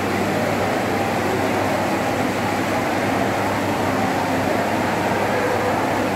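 Steady rushing hiss of a musical fountain's water jets spraying and splashing back into the pool.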